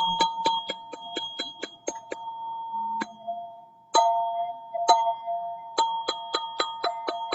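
Black ZenTube struck in quick runs of about four or five strikes a second, each strike ringing on in two bell-like tones. About two seconds in the run breaks off into a few single, slower strikes, then the quick striking resumes near the end.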